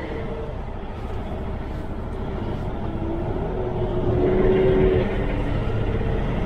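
Diesel engine of an International semi-tractor running at low speed while the truck maneuvers in a yard, heard inside the cab; it grows a little louder about four seconds in.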